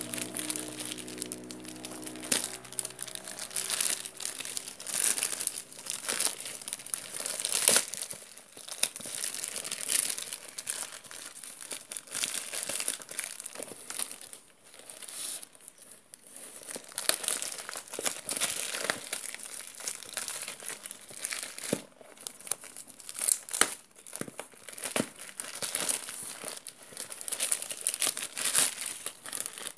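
Clear plastic packaging crinkling and crackling in irregular bursts as it is handled and pulled open.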